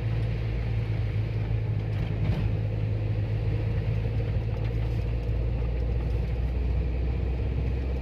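A car's engine and road noise heard from inside the cabin while driving: a steady low drone.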